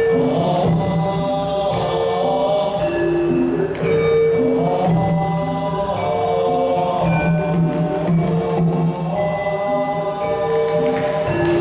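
Sundanese dogdog percussion-ensemble music, with a group of voices chanting together over a short melodic phrase that repeats about every two seconds.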